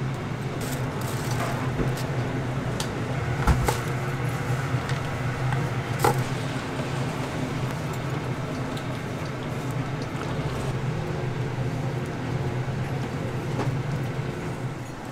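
Cooking at a takoyaki griddle: a steady low hum with scattered light clicks, and two sharper knocks about three and a half and six seconds in.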